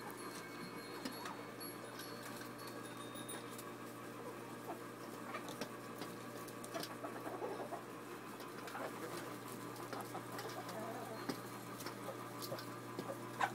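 Hens pecking and scratching at petals on the coop's litter floor, a scatter of small taps, with soft short clucks now and then. A steady low hum runs underneath.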